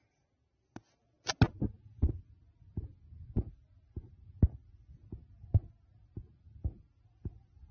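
A run of short knocks or clicks, roughly two a second and unevenly spaced, over a faint low hum.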